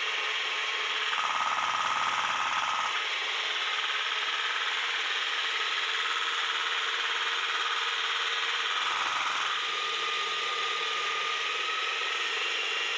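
Electric jackhammer converted into a soil tamper, running steadily with a high motor whine while it is warmed up before tamping.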